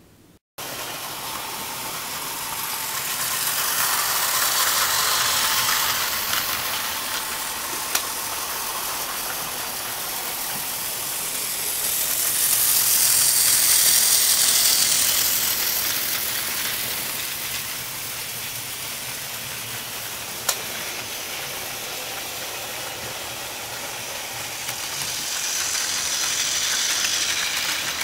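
Plarail toy trains running on blue plastic track: the small battery motors whir and the wheels rattle along the rails, swelling louder three times as a train passes close by, with two sharp clicks along the way.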